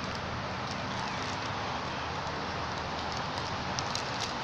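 Foil snack bag crinkling as a crab-eating macaque handles it, a few sharp crackles with the loudest near the end, over a steady outdoor hiss.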